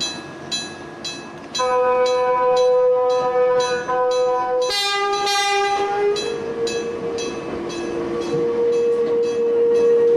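Japanese level-crossing bell striking about twice a second while an Enoshima Electric Railway train sounds its horn: one long blast of about three seconds, then a shorter blast at a different pitch. The passing train then keeps up a steady high whine under the bell.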